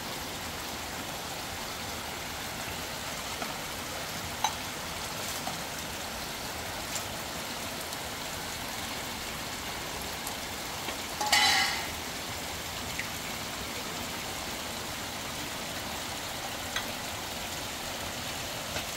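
Fast river water rushing, a steady hiss. A few faint clicks come through, and one brief louder sound about eleven seconds in.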